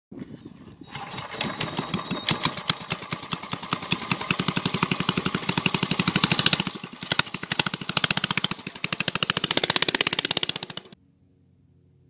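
Small single-cylinder mini bike engine running hard with rapid, even firing pulses. It revs up, drops back about two-thirds of the way through, revs up again, then stops abruptly near the end.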